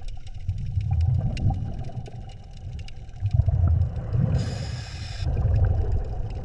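Ocean water surging in low rumbling swells, with scattered small clicks throughout and a brief bright buzzing tone about four and a half seconds in.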